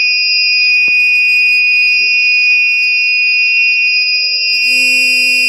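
An electronic buzzer in the homemade sanitizer machine gives one steady, loud, high-pitched tone while the UV sanitizing cycle runs on its timer.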